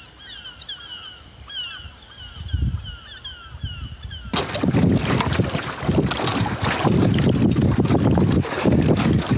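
A bird calling in a quick series of short falling chirps, several a second. About four seconds in, the sound cuts abruptly to loud wind buffeting the microphone.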